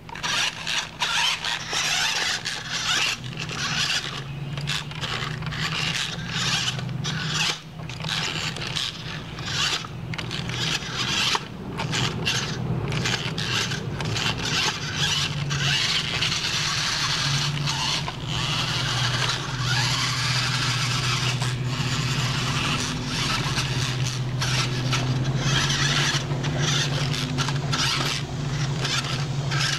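Small electric motors and gearboxes of toy RC rock crawlers whining in stop-and-start bursts as the throttle is worked on and off, with tyres scraping over rock and a steady low hum underneath. The trucks are running on weak batteries.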